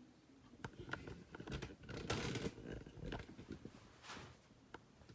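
Plastic K'nex model pieces being handled, with scattered clicks and rattles and a louder rustling scrape about two seconds in.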